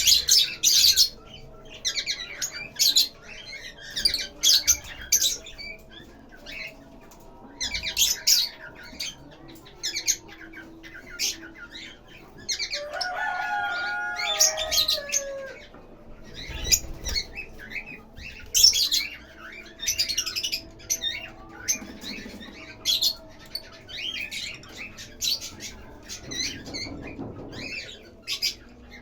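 Lovebirds chirping and squawking: many short, sharp, high calls in quick, uneven runs, with one lower call near the middle that slides down in pitch.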